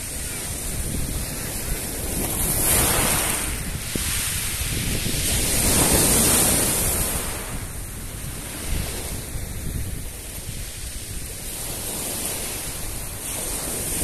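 Sea surf: small waves breaking and washing up the shore in foamy rushes, swelling loudest about three and six seconds in, with some wind on the microphone.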